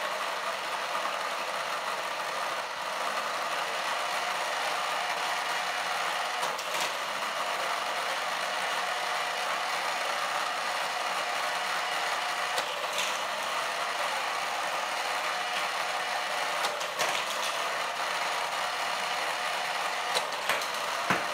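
Modified Hot Wheels booster running at 6 volts from an AC adapter: its small electric motor and spinning drive wheels give a steady whir. A few sharp clicks come as die-cast cars are shot through it and run along the plastic track.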